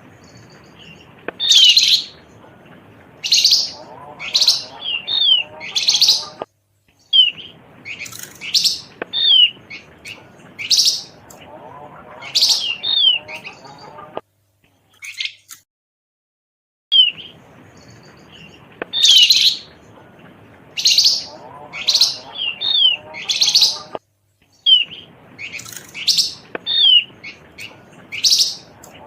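Looped lure recording of opior jawa (Javan grey-throated white-eye) and flamboyan calls: clusters of high chirps and short falling whistled notes, repeating with brief silent breaks where the loop restarts.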